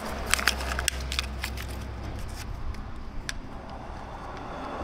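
Sharp clicks and small knocks of something small and hard being handled, a quick run of them in the first second and a half and another around three seconds in, over a low steady hum.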